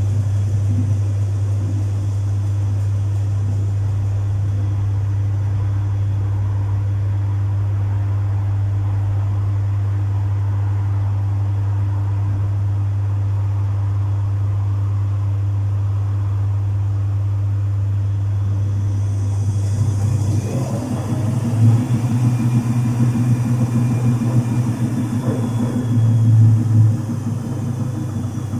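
Domus 8 kg washing machine running a full load: a steady low hum for about twenty seconds, then the motor changes speed with a rising whine and a louder, uneven rumble that swells twice.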